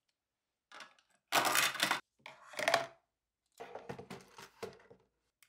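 Loose pens and plastic desk organisers being handled: four short bursts of clattering and rattling, the loudest about a second and a half in, the last one pens jostling in a drawer as a hand rummages through them.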